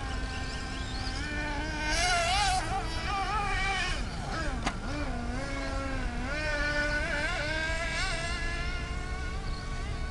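Radio-controlled off-road buggy's motor buzzing at high pitch, rising and falling repeatedly as it speeds up and slows around the track, with a single sharp tick about halfway through.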